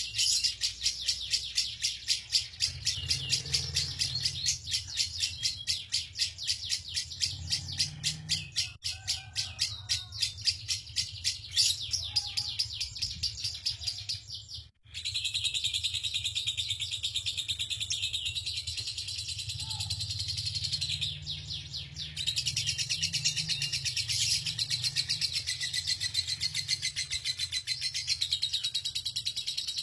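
Lovebird 'ngekek': a long, unbroken chatter of rapid, shrill repeated notes, broken only by a brief gap about halfway through. This prolonged chattering is the trait prized in Indonesian lovebird singing contests.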